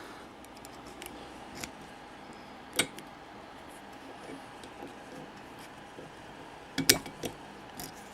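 Small Blackspur padlock and its key being worked: a few sharp metal clicks, one about three seconds in and a louder cluster about seven seconds in, as the padlock is locked.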